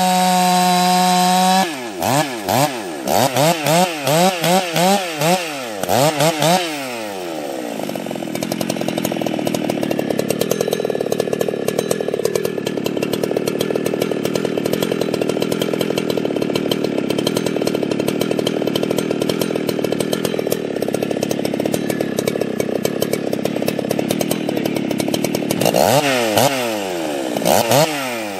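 Husqvarna 61 two-stroke chainsaw held at full throttle, then blipped up and down about twice a second. For most of the time it runs steadily at lower revs under load, cutting into wood, and near the end the rapid throttle blips return.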